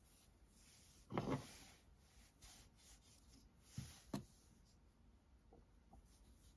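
Faint rustling of yarn and a metal crochet hook being handled during a yarn colour change, with one brief louder rustle about a second in and two small sharp ticks near four seconds.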